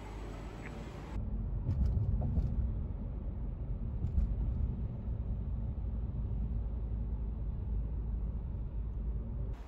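Steady low rumble of a car driving in traffic, with a few faint clicks in the first few seconds.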